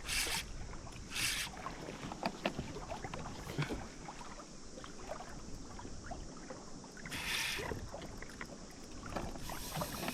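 Water slapping and splashing around a fishing kayak, with three short splashy hisses and scattered small ticks and drips.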